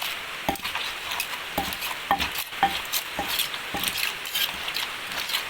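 Wooden pestle knocking and scraping in a mortar as the papaya salad seasoning is pounded and mixed, with irregular knocks about twice a second over a steady hiss.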